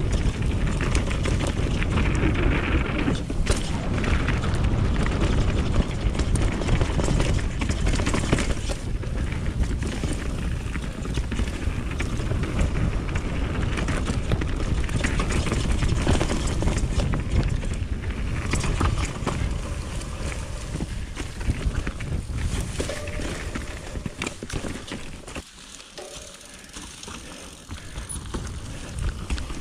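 Mountain bike riding fast down a dirt flow trail: a steady rush of tyre noise, with the chain and frame rattling and knocking over bumps. It quietens for a few seconds near the end.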